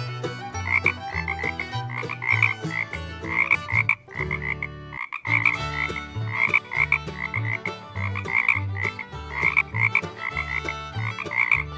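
Frogs croaking in quick runs of a few notes that repeat about once a second, with lower droning tones underneath. There is a short break about four seconds in.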